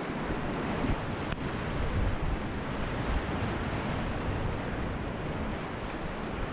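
Rushing whitewater of a river rapid, a steady, even hiss of moving water, with wind buffeting the microphone in uneven low rumbles.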